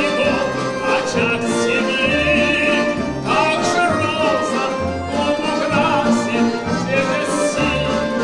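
A man singing a song with vibrato at a microphone, accompanied by a folk-instrument ensemble.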